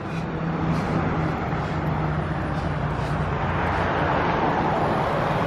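Road traffic on a busy street: a steady engine hum under tyre noise that grows a little louder as vehicles pass.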